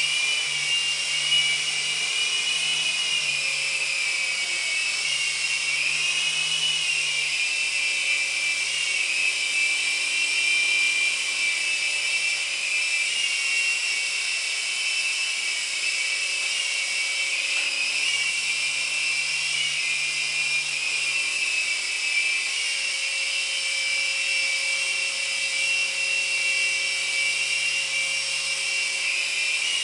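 Small electric RC helicopter flying, its motor and rotors making a steady high-pitched whine that wavers slightly in pitch as it hovers and moves.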